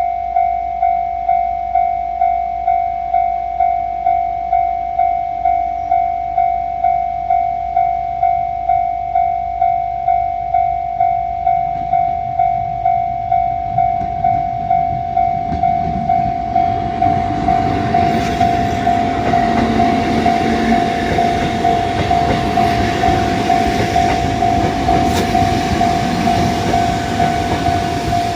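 Japanese level-crossing alarm ringing steadily at about two strikes a second. From about 16 seconds in, a Kotoden electric train approaches and passes over the crossing, its running noise rising over the bell.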